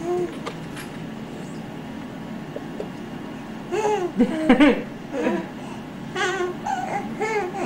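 A baby babbling and laughing in short, high-pitched calls that rise and fall, in two spells, about four and about six seconds in.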